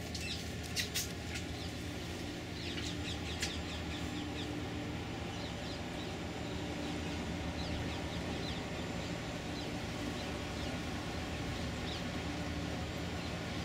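Steady low hum of ship engines on the river. Runs of short, high bird chirps come over it several times, and there are a few sharp clicks in the first few seconds.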